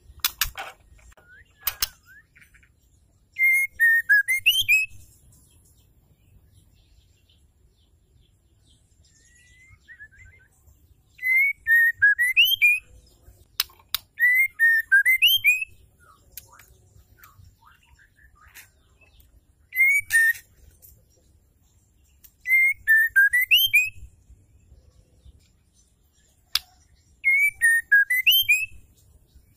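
Female white-rumped shama calling: a short whistled phrase that dips and then swoops up, repeated about six times a few seconds apart, with a few sharp clicks in between.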